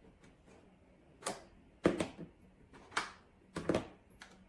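Plastic high chair legs being unclipped and handled: a series of sharp clicks and knocks, about six of them, starting about a second in.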